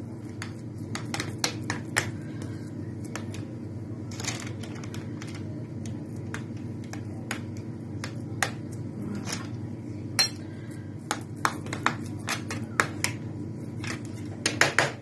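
A metal spoon clicking and scraping against a square metal ring mould while spreading a soft layer inside it: irregular light taps, a few close together, over a steady low hum.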